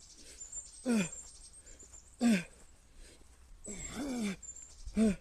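A man's short grunts of effort, each falling in pitch, repeated every one to two seconds as he strains through push-ups under a 20 kg weighted vest, with a longer strained breath just before the last grunt.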